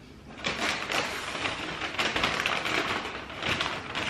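Paper takeaway bag rustling and crinkling as a hand rummages through it, starting about half a second in.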